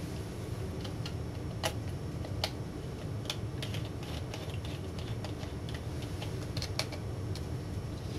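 Scattered light clicks and ticks, irregularly spaced, of screws being driven with a screwdriver into an LCD monitor's metal chassis and circuit boards. A steady low hum runs underneath.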